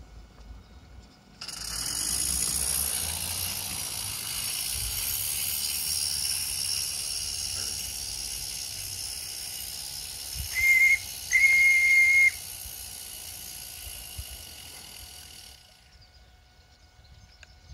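Regner No. 102 live-steam tram running with a steady steam hiss that starts suddenly a little over a second in and fades near the end as the tram moves away. About ten seconds in its radio-controlled steam whistle sounds twice on one high note, a short toot and then a longer one.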